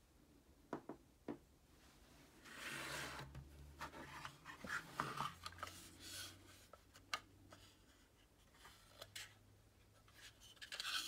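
Handling noise of a small plastic desk organizer with a card calendar: a few light clicks and knocks on a tabletop, then rubbing and scraping as it is picked up and turned in the hands, with a short flurry of rubbing near the end.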